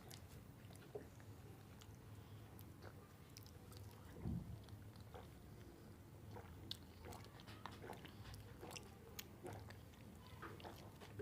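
Faint chewing and mouth sounds of people eating bananas, with scattered small clicks and a brief low thump about four seconds in.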